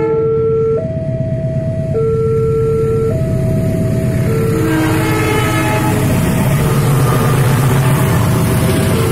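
Railway level-crossing warning bell sounding an alternating two-tone chime, about one note a second, while a KAI passenger train approaches and passes. The train's rumble and rail noise build from about halfway in and become the loudest sound near the end.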